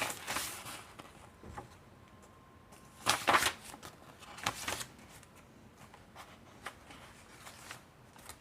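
Paper rustling and swishing as pages and cards of a handmade soft-cover junk journal are turned and handled, with two louder swishes a few seconds in and a few light ticks.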